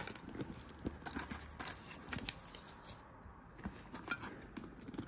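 Hands rummaging inside a Louis Vuitton Speedy 25 handbag, making scattered light clicks and rustles as the items inside are moved about.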